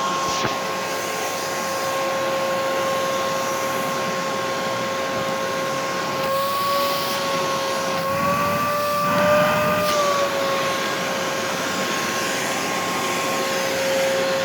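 Vacuum cleaner motor running steadily with a whining hum. Its pitch rises a little and wavers for a few seconds about halfway through, then settles back.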